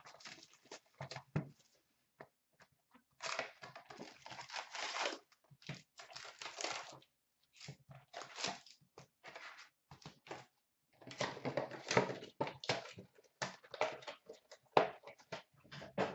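Hands tearing and crinkling the wrapping of a sealed box of hockey trading cards as it is opened and its packs are taken out, in irregular rustling bursts with small clicks and taps.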